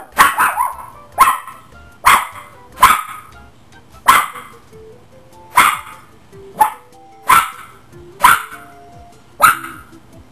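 Toy Maltese puppy barking about ten times, roughly once a second with uneven gaps, each bark short and high.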